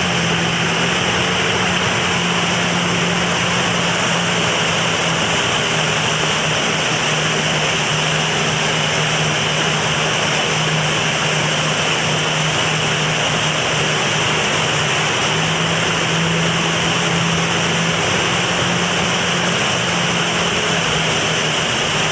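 Jet ski engine running at a steady cruising speed while towing a wakeboarder, its low hum drifting slightly up and down in pitch, under a constant rush of water spray and wind noise.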